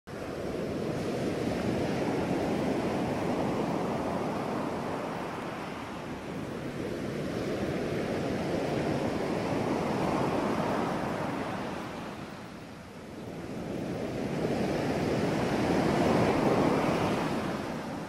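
Ocean waves washing on a shore: a steady surf noise that rises and falls in slow swells, three in all, with the loudest near the end.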